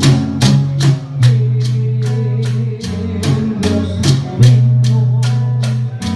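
Live band music: a steady beat of sharp percussion strikes, about two and a half a second, over held bass notes and a wavering melody line.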